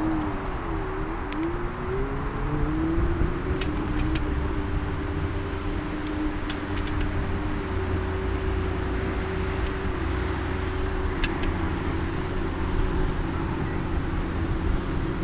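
Segway Ninebot Max G30D electric scooter riding, its hub motor whining. The whine's pitch wavers for the first couple of seconds, rises, then holds fairly steady over a low rumble from the tyres and wind, with a few sharp ticks.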